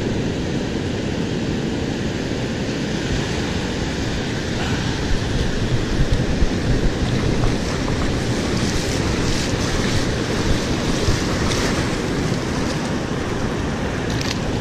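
Ocean surf washing up a sandy beach in a steady, unbroken rush, with wind buffeting the microphone.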